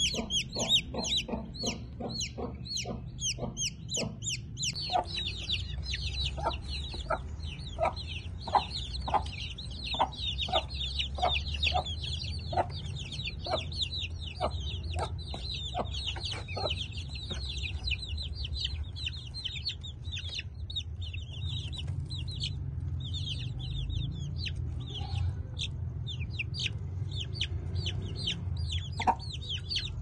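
Domestic chicken chicks peeping: a dense, continuous run of short, high, falling peeps. From about five seconds in until about seventeen seconds, a lower cluck repeats about twice a second.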